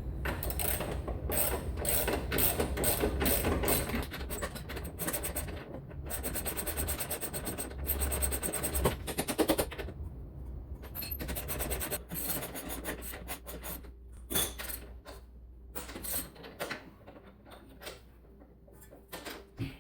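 Socket ratchet clicking rapidly as the coilover's lower mounting bolt is driven down, then slower, sparser clicks and metal knocks in the second half.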